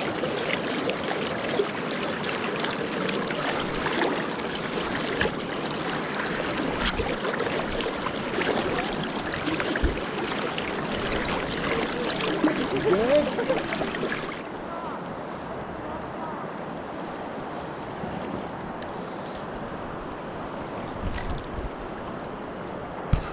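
Swift river current rushing, a steady wash of moving water. About fourteen seconds in it drops suddenly to a quieter, duller rush.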